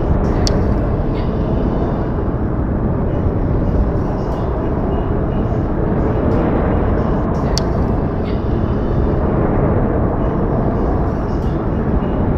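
Outdoor ambience recorded in falling snow: a steady, low, rushing rumble, with a couple of brief sharp ticks, about half a second in and again past the middle.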